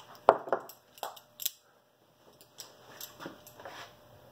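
Sharp metal clicks and knocks from hand tools worked on a seized screw in an outboard motor's lower unit held in a bench vise. Four stronger strikes come in the first second and a half, the loudest about a quarter second in, then fainter taps.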